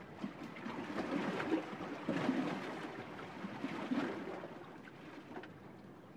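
Water splashing and sloshing against the hull of a small sailboat under way in choppy water, in irregular surges that grow quieter near the end.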